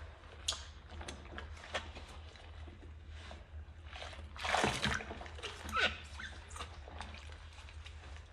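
Dishwashing in a sink of soapy water: rubber-gloved hands scrub a ceramic mug with a sponge, with small scrapes, squeaks and sloshes. About halfway through, water pours out of the mug into the sink with a splash. A steady low hum runs underneath.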